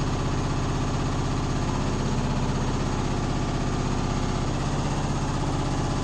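Washing machine running, a steady motor hum with a fast, even vibration throughout.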